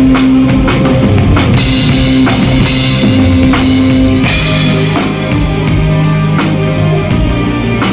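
Rock song with a full band and a drum kit played along to it: evenly spaced drum hits over held bass and guitar notes, with a cymbal wash in the first half.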